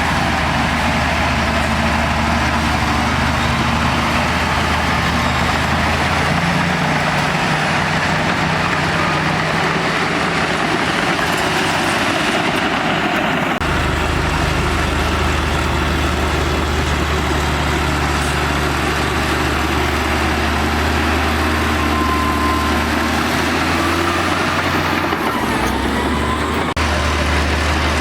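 Heavy diesel engine of earthmoving machinery running steadily under load, with a constant rumble of machine noise. Its low note shifts several times, at about a quarter, half and near the end of the stretch, as the engine speed and load change.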